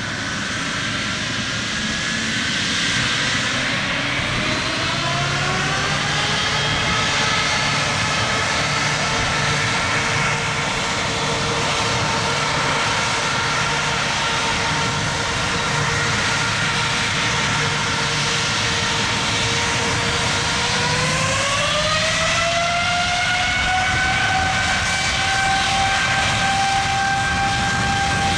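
General Electric GE90 turbofans on a Boeing 777-200ER spooling up for takeoff. The whine rises a few seconds in, holds steady, then rises again to a higher pitch about twenty seconds in as the engines go to takeoff power, with the noise growing louder throughout.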